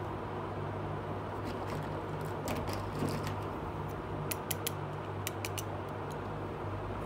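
Small plastic toy pieces being handled, giving a scatter of light clicks and taps, bunched in two quick groups a little past the middle. Under them runs a steady low hum.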